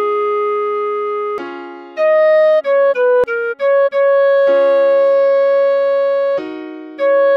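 Clarinet playing a slow melody over sustained piano chords: a held A#4, a quick run of short notes stepping down, then a long held D#5 before moving on near the end.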